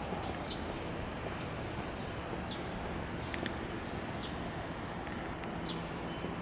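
Steady outdoor street background noise, a constant hiss-like hum, with a few brief high bird chirps scattered through it.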